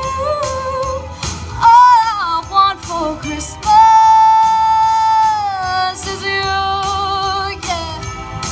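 A teenage girl's solo singing voice amplified through a microphone and PA speaker, over backing music with a steady beat. She sings a quick run of notes, then holds one long note for about two seconds before sliding down, followed by shorter notes with vibrato.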